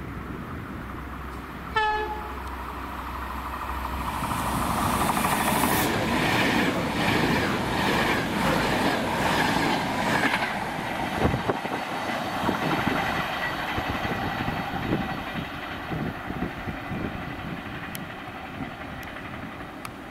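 CP Alfa Pendular electric tilting train gives a short horn blast about two seconds in, then runs through at speed with a rush of wheel and air noise that builds and is loudest in the middle. The rush gives way to scattered clacks of wheels on the rails that fade.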